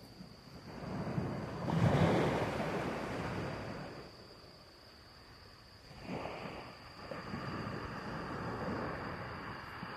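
Sea waves washing in, swelling about two seconds in and again about six seconds in, with wind buffeting the microphone.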